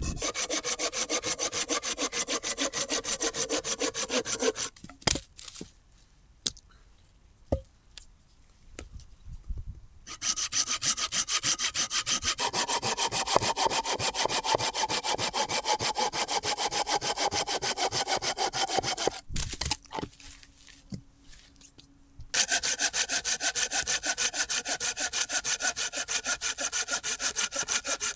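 Hand saw cutting through wood in three bouts of quick, even strokes with short pauses between, the blade ringing faintly and a few knocks in the pauses.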